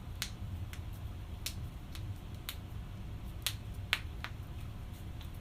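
Joints cracking during a chiropractic adjustment: a quick series of sharp pops, about nine in five seconds at uneven intervals, the two loudest near the middle.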